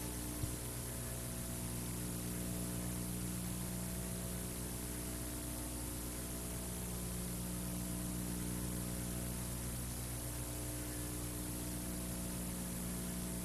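Steady electrical mains hum with several overtones under a constant hiss. No tool is running, and there is one faint tick about half a second in.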